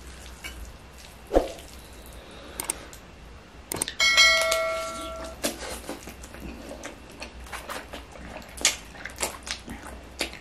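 Mouthfuls of spicy instant noodles being slurped and chewed, with forks clicking against the noodles and plate. About four seconds in, a single bright bell-like chime rings out and fades over about a second.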